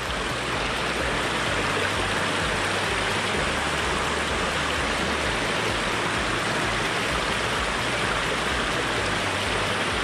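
Small mountain stream running steadily over rocks, its little cascades splashing and rushing into a shallow pool.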